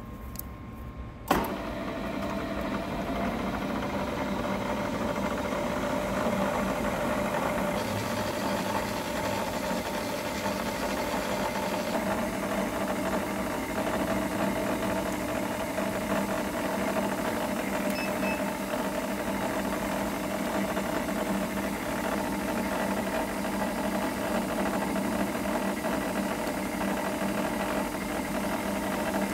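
Milling machine running steadily with an edge finder in the spindle, a steady hum with a few held tones; it starts abruptly about a second in.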